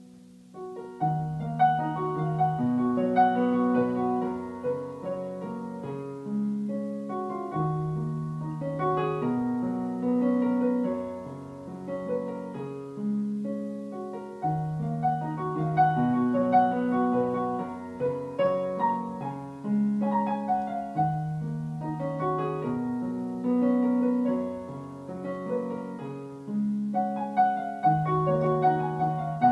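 Yamaha DGX-500 Portable Grand digital piano played with a piano sound: a slow piece of held bass notes under a moving melody, its chord pattern repeating about every six to seven seconds. Playing picks up again about a second in after a brief lull.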